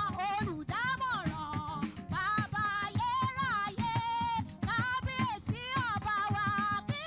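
A woman singing a melody live into a microphone, backed by drums including a Yoruba talking drum played with a curved stick, keeping a steady beat.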